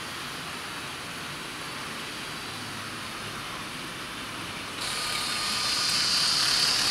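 OO gauge model trains running on the track: a steady whirr of wheels and electric motors. About five seconds in it suddenly gets louder, with a higher whine, as a model diesel locomotive passes close by.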